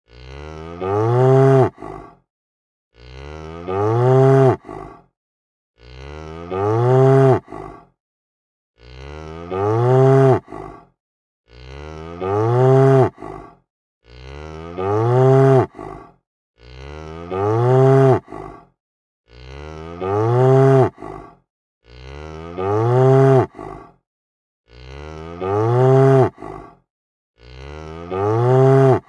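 A cow mooing: the same moo repeated eleven times, about every two and a half seconds, with complete silence between. Each moo starts quieter, swells into a loud drawn-out call that rises and then falls in pitch, and ends with a short lower tail.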